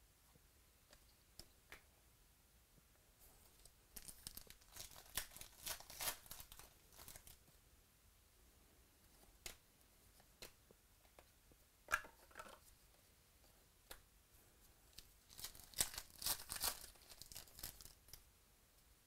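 Faint crinkling and tearing of a trading-card pack wrapper in two spells, about four seconds in and again about fifteen seconds in, with light ticks and taps from cardboard cards being handled in between.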